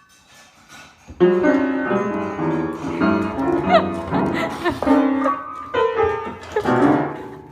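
Piano music that starts about a second in and fades out near the end.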